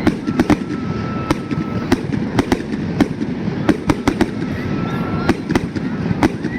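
Fireworks going off: a rapid, irregular string of sharp bangs and crackles over dense crackling, with a faint thin whistle tone heard twice.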